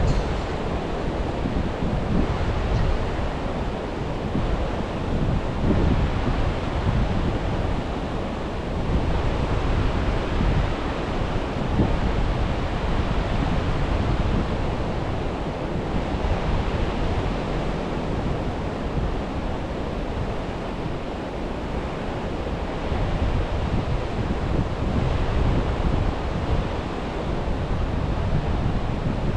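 Ocean surf washing onto a beach, rising and falling in slow swells, with wind rumbling on the microphone.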